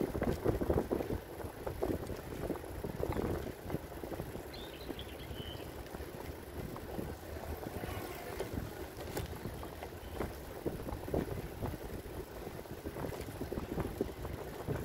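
Wind buffeting the microphone over the rolling rumble of a bicycle ride on asphalt, in uneven gusts with a few short knocks. A faint, brief high chirp comes about four and a half seconds in.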